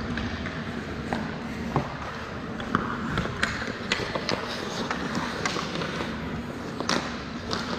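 Ice hockey play on a rink: sharp clacks of sticks and puck on the ice, scattered irregularly throughout, over a steady background hum of the arena.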